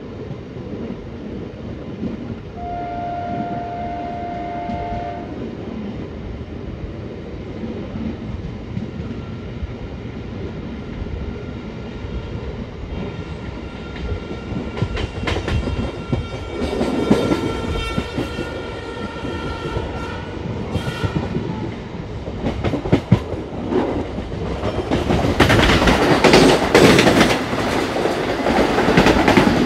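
Steady wheel-and-rail running noise of a moving MEMU electric train, heard from its open door, with clicks and clatter over rail joints and points. A train horn sounds for about two and a half seconds a few seconds in, and a high steady tone runs through the middle stretch. Near the end a Vande Bharat Express train set overtaking on the adjacent track adds a loud rushing noise, the loudest part.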